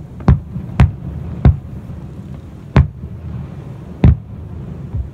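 Aerial firework shells bursting: five sharp booms at uneven intervals over about four seconds, with a steady low rumble underneath.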